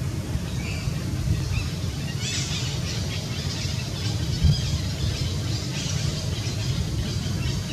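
High squeaky animal calls, scattered and then coming thick from about two seconds in, over a steady low rumble.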